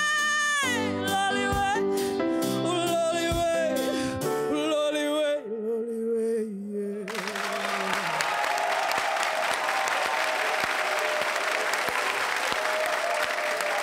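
A woman singing the last lines of a song over a karaoke backing track, ending on a held note. About seven seconds in, the studio audience breaks into applause that carries on to the end.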